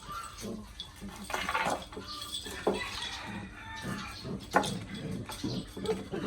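Puppies play-fighting over a toy: short yips and cries amid scuffling, with several sharp knocks and clatters, the loudest about two and a half and four and a half seconds in.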